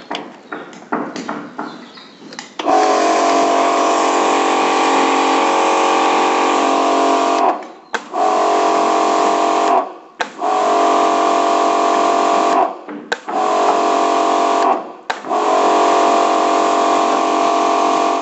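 Electric pressure washer motor and pump running in five separate runs, each starting and stopping abruptly, with a steady hum and a hiss over it. It is preceded by a few seconds of clicking and knocking from handling.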